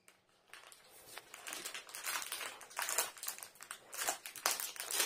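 Thin plastic candy wrapper crinkling as it is handled, in irregular crackles that come and go.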